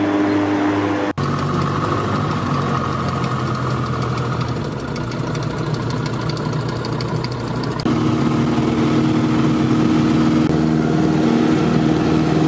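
Single-engine light aircraft's piston engine and propeller running, heard from inside the cockpit. The engine note jumps abruptly about a second in and changes again near eight seconds, where it grows louder.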